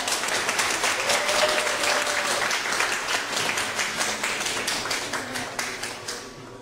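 Small audience applauding, dense clapping that thins out and dies down near the end.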